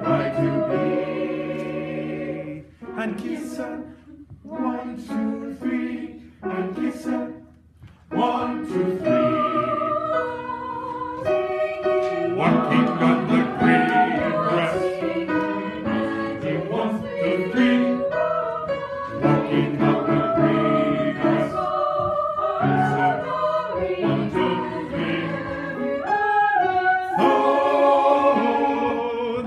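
Mixed choir singing together. About three to eight seconds in the singing thins to short, separate notes, then the full choir comes back in and carries on.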